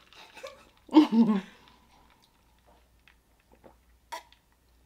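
Sips and swallows from a drinking glass, with small wet clicks of gulping. A short vocal sound from the drinker about a second in is the loudest thing.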